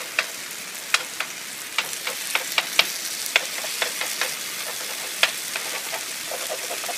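Thick onion-tomato sauce sizzling in a large pan over high heat, with irregular sharp clicks and scrapes of a spoon against the pan as the sauce is stirred and pushed aside to make space for eggs.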